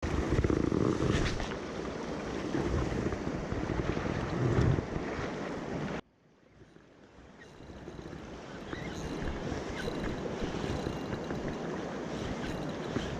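Sea surf washing against coastal rocks, with wind buffeting the microphone as a low rumble. The sound drops out sharply about halfway through and swells back over a few seconds.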